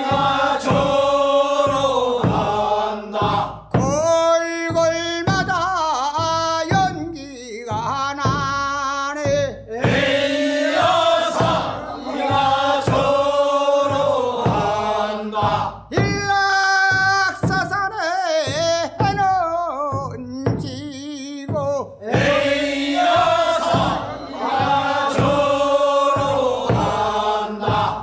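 Korean rice-paddy weeding work song (nonmaeneun sori, first weeding) sung by a group of men: a single lead voice with a wavering pitch alternates with fuller passages of the group singing together.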